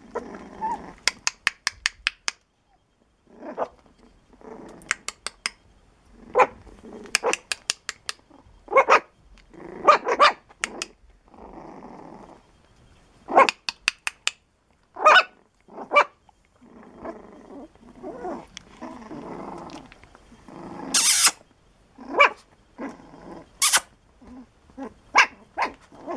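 Runs of sharp knocks, several in quick succession, alternating with a dog barking and growling.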